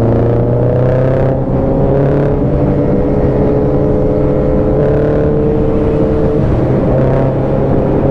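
Superbike engine running at a steady cruise, its pitch holding nearly constant, with wind and road noise.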